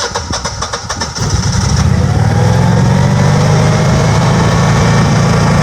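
Generac 6244 20 kW natural-gas standby generator starting: the starter cranks rapidly for about a second, then the engine catches, comes up to speed and settles into steady running. The unit has a hard-start problem that was put down to its gas supply.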